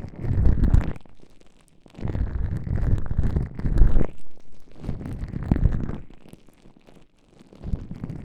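Gloved hands rubbing baby oil and gel over microphone ears: slippery, squishing rubs in several strokes of one to two seconds each, with short pauses between.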